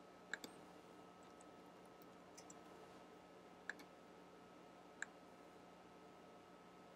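Near silence with a faint steady hum, broken by three sharp clicks and a few softer ticks from a computer mouse and keyboard being used.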